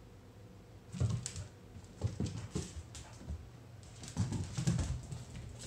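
A dog's claws clicking and scrabbling on a hardwood floor as it runs after a laser dot, in a few short spells with some dull thumps.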